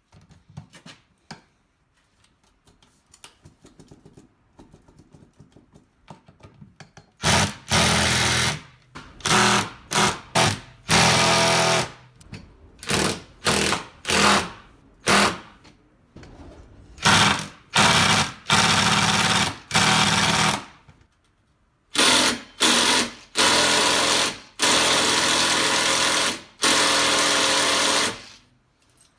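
Faint clicks for about seven seconds, then a cordless impact driver hammering in repeated bursts, some brief and some two or three seconds long, on bus seat-railing bolts that are stuck.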